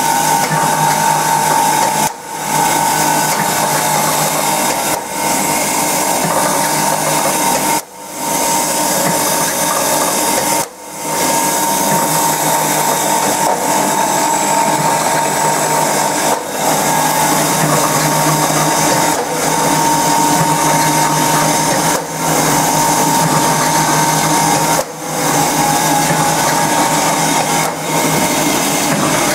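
Wire mesh roll welding machine running: a loud, steady mechanical din with a steady high hum, dipping briefly several times.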